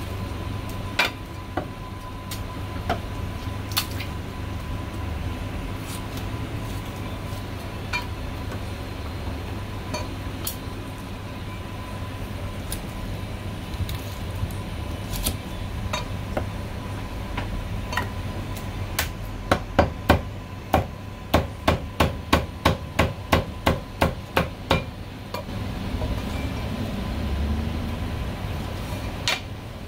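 Heavy cleaver chopping marinated goose on a chopping block: scattered single chops, then a fast, even run of about three chops a second some two-thirds of the way through. A steady low hum runs underneath.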